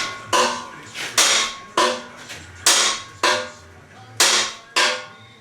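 Sledgehammer blows on welded steel, seven heavy strikes at an uneven pace, each leaving a brief metallic ring: a part that is not square being bashed into place.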